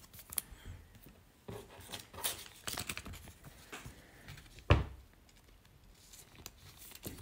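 Trading cards being slid into thin plastic sleeves: soft rustling and small clicks of plastic and card, with one louder knock about two-thirds of the way through.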